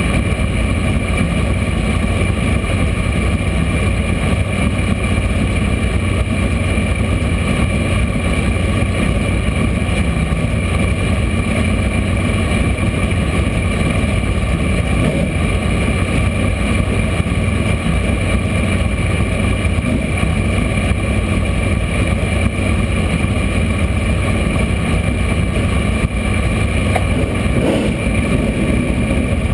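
Race car engine idling steadily with the car standing still, heard from inside the cockpit as a loud, even rumble.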